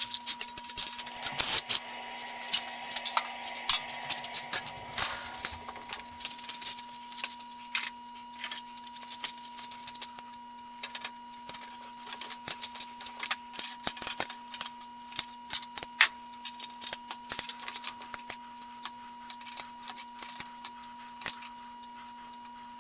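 Irregular small metallic clicks and clinks, from hand tools and hardware being handled during disassembly, thicker in the first few seconds. A faint steady high tone and low hum run underneath.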